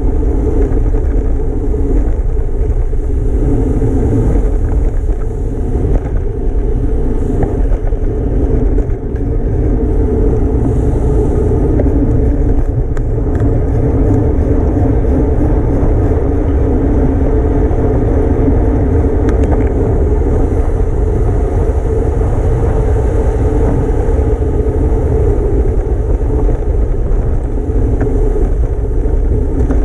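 Steady wind rush and tyre noise from a road bicycle ridden at racing speed.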